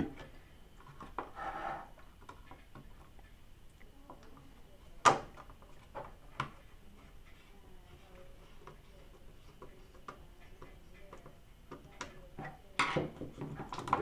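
Small clicks and taps from handling an M.2 SSD and a screwdriver on a computer motherboard as the drive is seated and screwed down, with one sharper click about five seconds in and a run of taps near the end.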